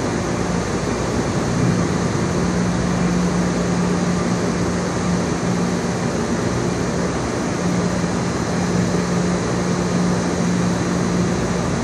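Steady machine drone: a constant rushing noise with a low hum that drops out briefly a few times.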